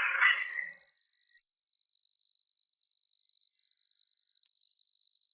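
A 3000 W dual-wire, water-cooled handheld laser welder running a continuous weld on a steel gas pipe: a steady, high-pitched hiss with no low sound in it.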